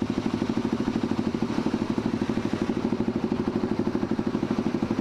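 Motorcycle engine idling while the bike stands still, a steady, even putter of about twelve beats a second.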